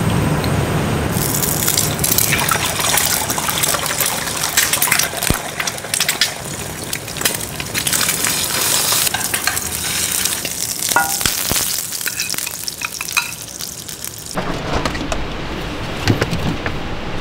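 Eggs frying in hot oil in a frying pan, sizzling steadily with many small crackles and pops. The sizzling stops suddenly near the end, leaving duller sounds with a few clicks.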